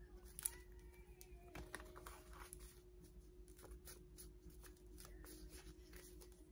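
Near silence: quiet room tone with a faint steady hum and scattered faint clicks and ticks, one a little sharper about half a second in.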